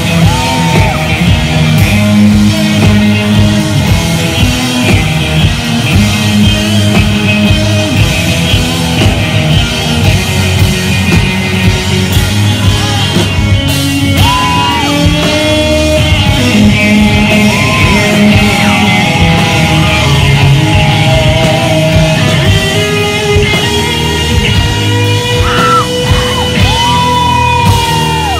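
Live rock band playing loud: distorted electric guitars and a drum kit, with sung and yelled vocals over the top.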